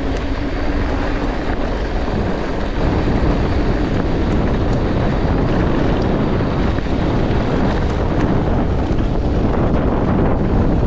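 Wind rushing over an action camera's microphone while riding a mountain bike, a dense steady noise that grows louder about three seconds in.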